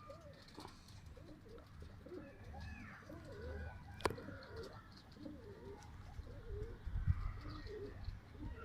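Domestic pigeons cooing softly, many short overlapping coos, with one sharp click about four seconds in.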